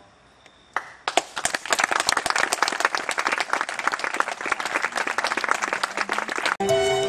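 Audience applause, starting about a second in and cutting off abruptly near the end, where string music begins.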